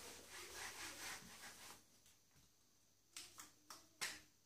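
Whiteboard eraser rubbing across the board in quick back-and-forth strokes for about two seconds. A few short sharp clicks follow near the end.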